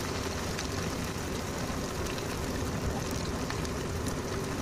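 Freshly added chopped onions sizzling in hot mustard oil in a kadhai: a steady frying hiss scattered with small pops and crackles.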